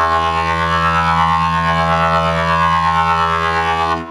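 Steady electronic buzzing drone holding one pitch, from a robot-voice effect. It cuts off about four seconds in.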